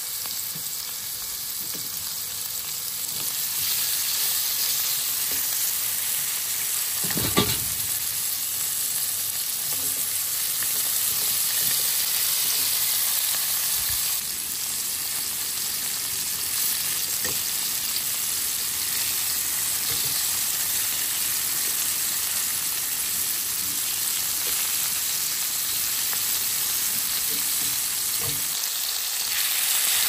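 Beef steaks and sliced garlic sizzling in oil in a frying pan, a steady hiss with a few light clicks. One louder knock about seven seconds in.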